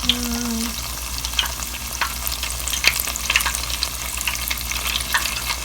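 Batter-coated ice cream sandwich deep-frying in hot oil: a steady sizzle with dense, irregular crackling pops.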